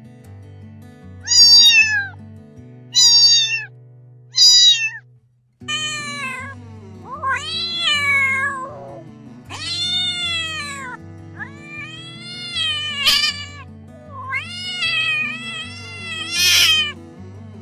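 A cat meowing over background music: three short, high meows in the first few seconds, then, after a brief break, a series of longer, drawn-out meows that rise and fall in pitch.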